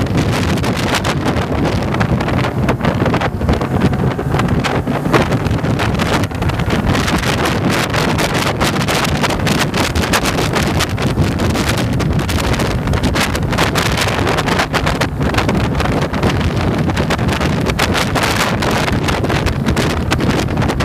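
Wind buffeting the microphone of a handlebar-mounted camera on a motorcycle under way, with the motorcycle's engine droning steadily underneath.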